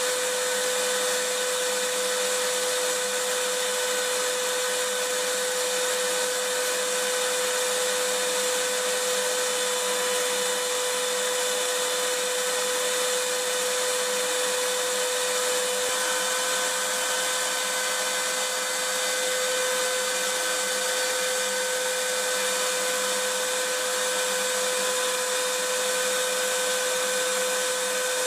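Vacuum cleaner running steadily: an even, unchanging hiss with a constant motor whine.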